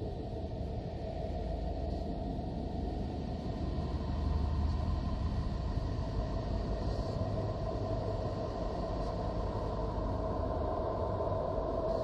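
A steady, low rumbling drone with a humming band in the middle range, swelling slightly about four seconds in: a 'sound of Neptune' made from NASA Voyager spacecraft recordings turned into audio.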